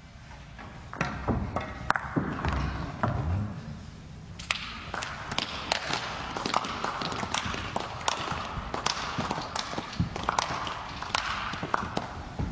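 Scattered clapping and sharp knocks over a steady hiss, starting about a second in and going on irregularly, a few knocks a second.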